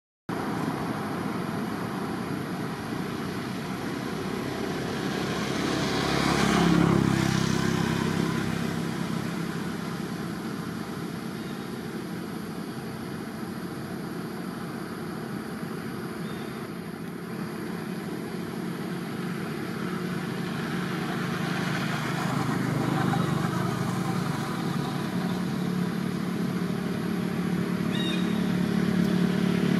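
Motor-vehicle traffic going by: a steady hum with vehicles passing, the loudest swell about seven seconds in and others around twenty-three seconds and near the end.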